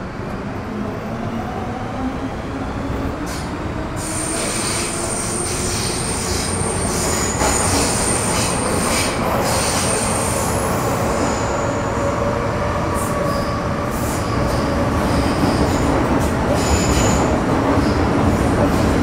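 Metro Cammell M-Train (CM-stock) electric multiple unit running on the line, heard from inside the car: the GEC GTO chopper traction motors whine in tones that rise in pitch as the train gathers speed, over a steady wheel-and-rail rumble. A thin high squeal joins about four seconds in and lasts several seconds, and the whole sound grows slowly louder.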